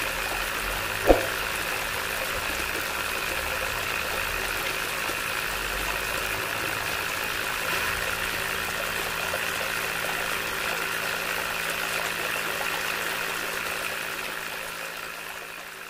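Small DC motor running steadily, driving a homemade bottle-cap water pump through a string belt, with water trickling out of a clear tube onto sand. A sharp click about a second in is the loudest moment, and the sound fades out over the last few seconds.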